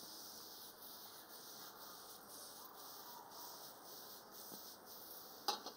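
Faint steady hiss with a few soft taps, then a single sharp clatter of cookware about five and a half seconds in.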